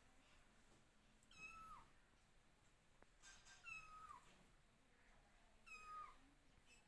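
Young kittens mewing, calling for their mother: three faint, high-pitched mews about two seconds apart, each held steady and then dropping in pitch at the end.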